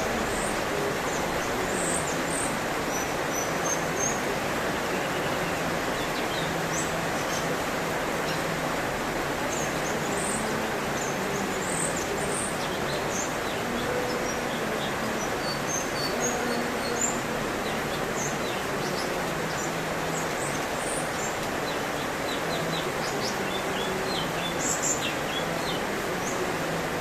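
Birds giving many short, high chirps scattered throughout, over a steady hiss.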